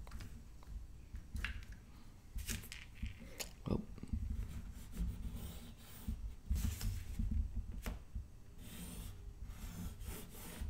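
Pencil scratching along a clear plastic ruler on paper in a few short strokes, with scattered light clicks and taps as the ruler is shifted and set down.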